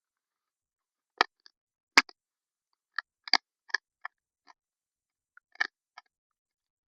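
Scattered short, sharp clicks and taps of small hard objects being handled, about a dozen in all, the loudest about one and two seconds in.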